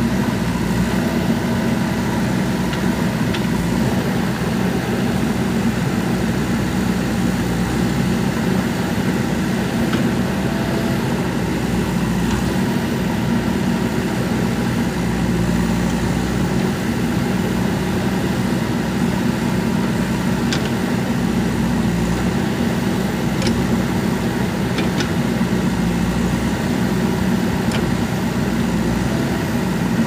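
Diesel engine of a JCB 3DX backhoe loader running steadily while the backhoe arm digs, with a few faint knocks in the second half.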